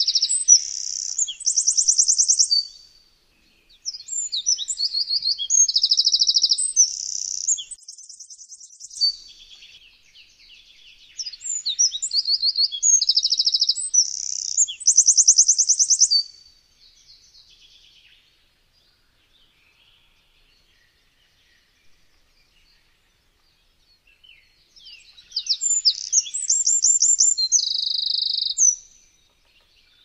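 Eurasian wren singing: loud bursts of high, rapid trills and warbles a few seconds long. The first burst is already under way at the start and ends about two and a half seconds in, two more follow close together, and after a pause of about eight seconds a last one comes near the end.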